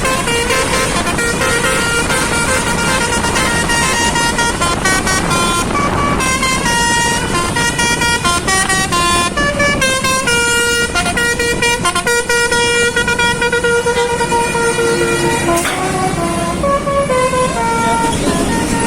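Telolet basuri multi-tone air horn on a bus playing a tune of changing notes, sometimes two at once, over steady engine and road noise.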